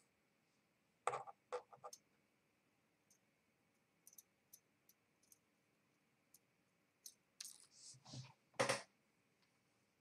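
Small sharp clicks and taps of steel tweezers and lock parts against an ABUS C83N lock cylinder being reassembled by hand. A few clicks come about a second in, light ticks follow in the middle, and a louder cluster comes near the end.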